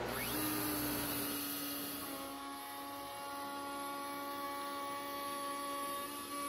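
An X-Carve CNC router's DeWalt 611 spindle running steadily as it carves plywood, a whine made of several steady tones.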